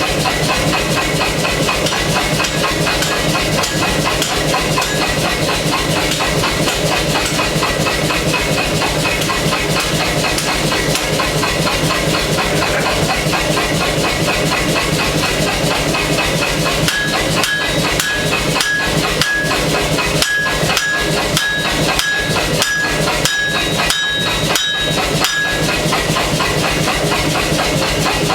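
Air hammer pounding hot steel in rapid, even blows over a steady noise. About two-thirds of the way through, the blows come out sharper, with a metallic ring.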